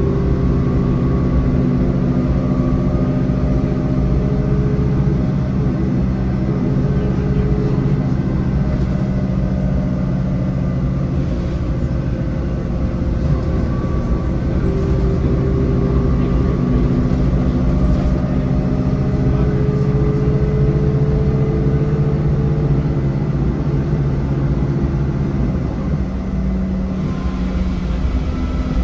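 Interior of a rear-engined low-entry city bus on the move: the engine and driveline run steadily under road noise, with a faint whine that rises and falls with speed.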